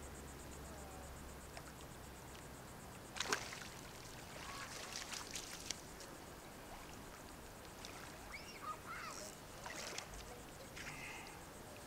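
Shallow surf water splashing and dripping as a landing net holding a spotted seatrout is scooped and lifted out of the water. One sharp splash about three seconds in, then faint trickling and sloshing.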